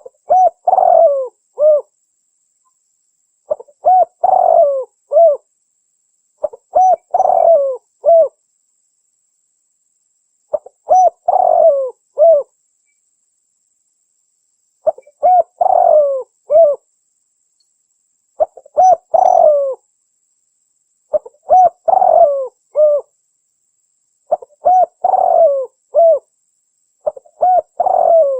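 Spotted dove cooing: a short phrase of several low, bending coos, repeated about every three seconds, nine times, with clean silence between phrases.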